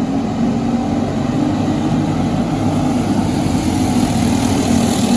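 Briggs & Stratton LO206 single-cylinder four-stroke kart engine sound, a steady drone that grows a little louder near the end.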